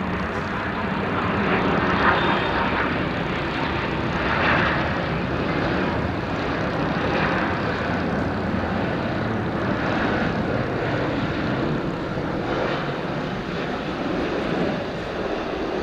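Boeing 777-200ER airliner's twin jet engines on final approach and flare: a steady rushing jet noise with mild swells and no sharp events.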